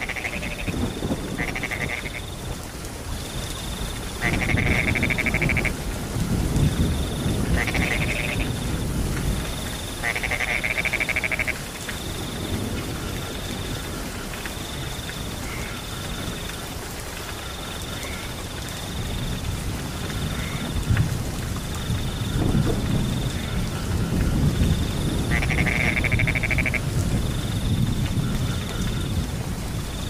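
Frogs giving several long calls, each a second or two, over a steady pulsing trill of crickets. Rain hisses underneath, and thunder rolls in low swells about 4 seconds in and again from about 22 seconds.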